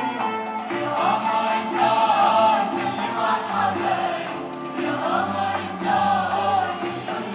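Mixed choir and two male soloists singing an Arabic song with a small instrumental ensemble including cello.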